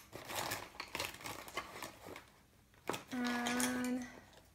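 Rustling and light clicking of pens and pencils being rummaged through in search of an eraser pen. About three seconds in, a person's voice holds a steady "mmm" for about a second.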